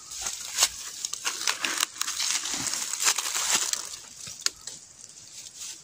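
Dry bamboo leaves, grass and twigs rustling and crackling as someone pushes through undergrowth, with irregular snaps of small stems. The rustling is densest in the middle and thins out near the end.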